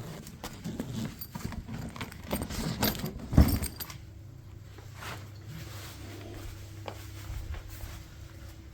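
Jangling, clattering handling noises ending in a single loud thump about three and a half seconds in, then a quieter steady low hum.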